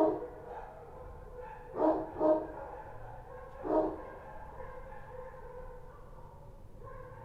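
Street dogs barking: four sharp barks, one at the start, two close together about two seconds in and one near four seconds, with fainter dog calls going on steadily behind them.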